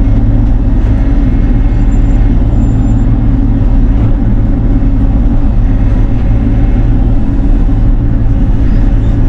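Bobcat E42 mini excavator's diesel engine running steadily, a loud, even drone with no breaks.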